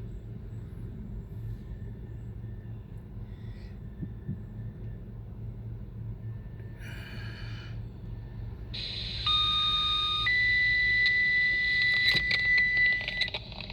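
A low steady rumble. About nine seconds in, a radio opens with a burst of hiss and electronic tone signalling: a chord of beeps for about a second, then one steady tone for about three seconds, then a few clicks.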